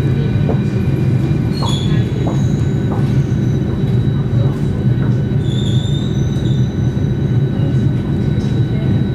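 Inside a moving Singapore MRT Circle Line train: steady rumble of wheels and running gear with a steady high whine, and brief high wheel squeals about two seconds in and again around five to six seconds.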